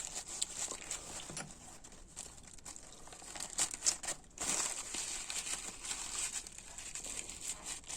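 Crinkling and rustling of a cleaning wipe being stuffed into a hydraulic lifter's body and twisted around inside, with scattered small clicks.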